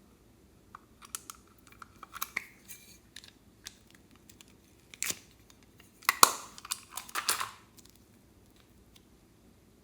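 Close-up handling sounds of slime and makeup items: scattered small clicks and crackles, a sharp click about five seconds in, and a quick flurry of crackling taps shortly after.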